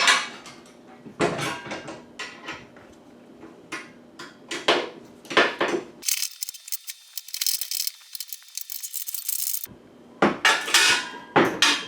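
Wrench and steel bolts clinking and clattering as nylon-insert lock bolts are cranked down on a metal saw table, with a run of sharp metal knocks. A steady high hiss lasts about four seconds in the middle.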